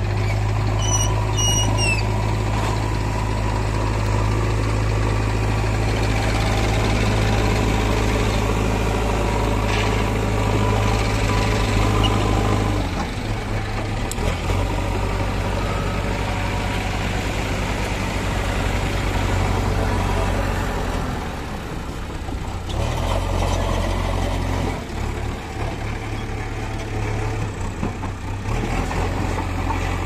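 JCB 3DX backhoe loader's diesel engine running steadily as the machine works its front loader bucket, its note shifting about halfway through and again later as the load changes. A brief high squeak about a second in.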